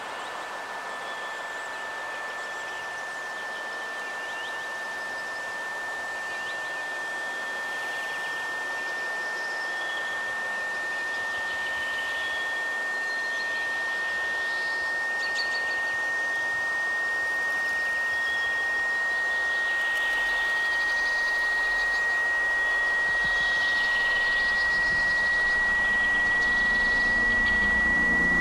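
Synthesized sine-like tone, high and steady, slowly rising in pitch and swelling louder throughout, over a bed of hiss with scattered faint chirps.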